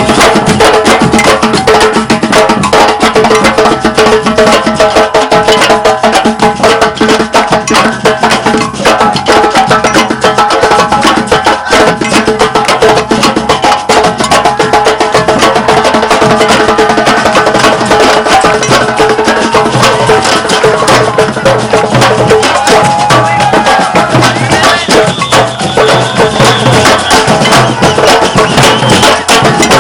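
Batucada ensemble playing samba percussion: many drums striking a dense, unbroken rhythm. A brief high steady tone joins in near the end.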